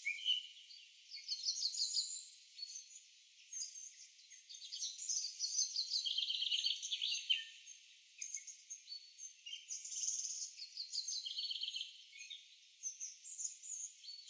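Several songbirds singing, with overlapping high chirps and quick trills that come and go in waves.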